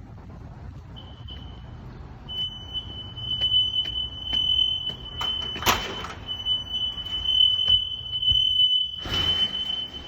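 Smoke alarm sounding under test: one steady high-pitched tone that starts about a second in, breaks off briefly around halfway, then carries on. Two short noisy bursts come over it, one about halfway and one near the end.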